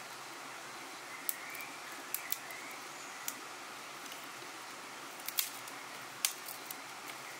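Dry twigs snapping: a scattering of about eight sharp cracks, irregularly spaced, as kindling is broken and handled at a wood fire, over a steady soft hiss.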